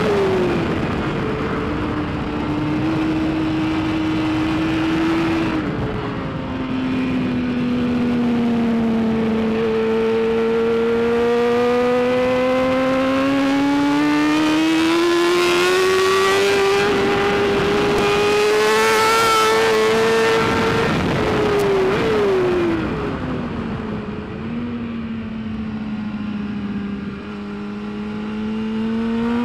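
BMW S1000RR superbike's inline-four engine at racing speed, the revs rising and falling. The pitch drops right at the start, holds, drops again about five seconds in, then climbs slowly and steadily for about fifteen seconds. It dips sharply about twenty-two seconds in and climbs again near the end.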